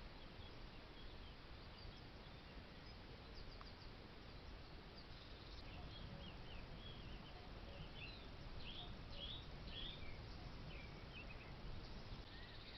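Faint outdoor background hiss with small birds chirping: a scatter of short, high calls, busiest from a few seconds in to about ten seconds, with a few more near the end.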